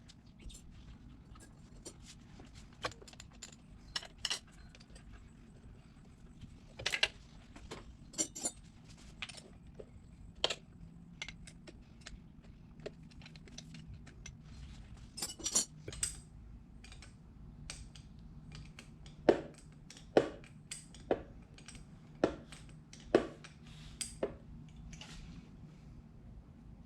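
Hand tools and small metal parts clicking and clinking while the carburetor linkage of a 1972 Honda CB450 is unscrewed and taken apart: scattered sharp clicks, with a few louder clinks past the middle.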